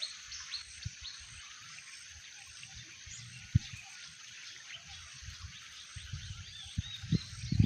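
Outdoor evening ambience: a steady high chorus of insects with scattered small chirps, over low knocks and buffets on the microphone that grow louder near the end.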